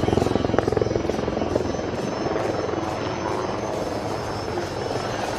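HAL Prachand light combat helicopter flying a display pass: rapid, steady rotor-blade chop over the whine of its turbine engines, loud throughout and cutting in abruptly at the start.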